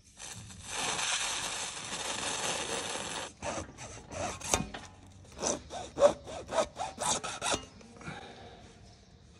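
Hacksaw cutting through a corrugated sprayer hose. A steady rasp of quick strokes lasts about three seconds, then about a dozen separate, sharper strokes follow, and the sawing stops shortly before the end.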